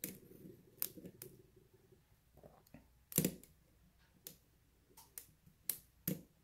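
Steel lock pick and tension wrench clicking and scraping inside a brass pin-tumbler lock cylinder during single-pin picking: scattered sharp clicks, the loudest about three seconds in.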